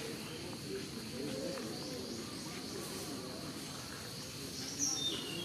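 Insects chirring steadily, with a faint low murmur underneath. Near the end a short, loud high call drops in pitch.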